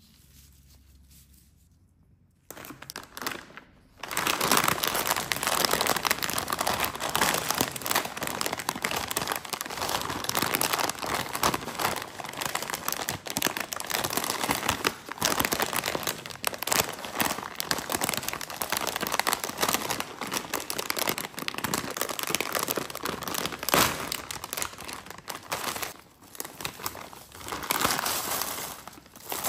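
A foil-lined plastic snack bag of banana chips crinkling and rustling as hands in disposable plastic gloves squeeze, handle and open it. The crinkling starts about two seconds in and is dense and continuous after that.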